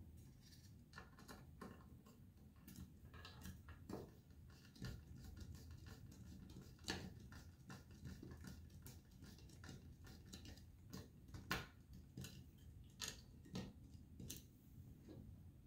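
Faint, irregular clicks and scrapes of a small screwdriver driving self-tapping screws into XLR connectors on an aluminum case panel, with a couple of sharper clicks partway through.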